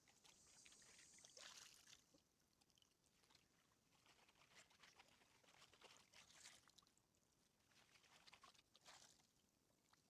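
Faint splashing and sloshing of shallow creek water as a wader sweeps a D-net through it and along the creek bed, coming in several irregular surges.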